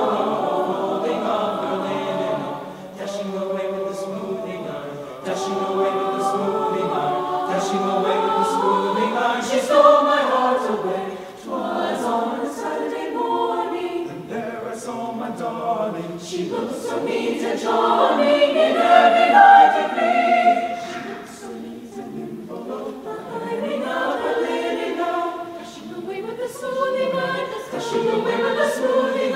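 Mixed choir of men's and women's voices singing, phrases swelling and falling back with brief dips between them, loudest about two-thirds of the way through.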